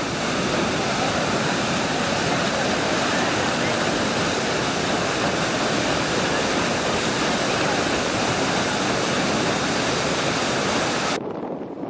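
Paddle wheel of the paddle steamer Schiller churning the water, a loud steady rushing and splashing that cuts off suddenly near the end.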